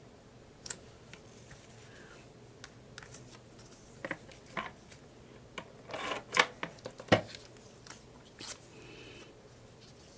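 Paper and cardstock pieces being handled on a tabletop: scattered rustles, light taps and clicks, with a cluster of sharper clicks and a knock a little after halfway.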